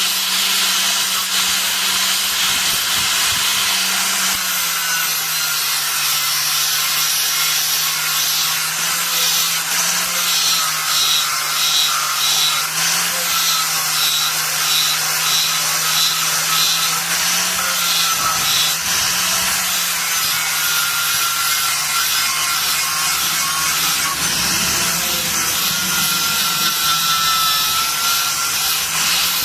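Power tool running steadily on metal: a loud high hiss over a low motor hum that dips and wavers slightly.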